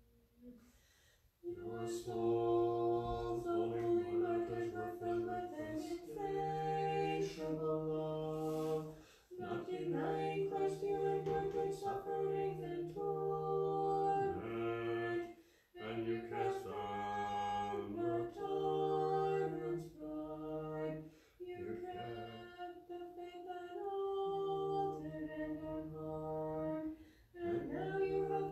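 Small a cappella church choir singing an Orthodox Vespers hymn in harmony, with men's and women's voices together. The singing begins about a second and a half in and goes in phrases of several seconds with short breaks between them.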